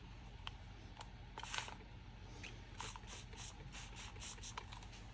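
Straight grooming shears snipping through wet tissue paper: a run of faint, short snips, most of them close together in the second half, with a brief hiss about a second and a half in.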